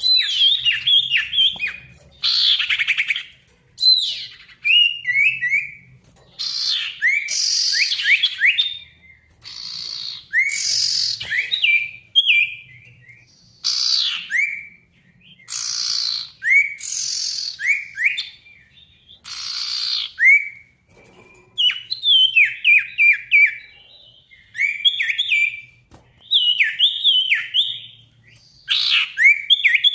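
Sirtu, an Indonesian songbird, in full song: loud phrases of quick downslurred whistles and chirps mixed with harsher rasping notes, each phrase a second or two long with short pauses between.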